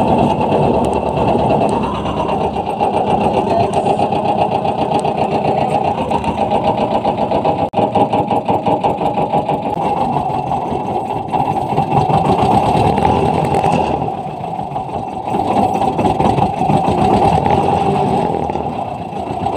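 Engine of a small site dumper running steadily with a fast, even clatter.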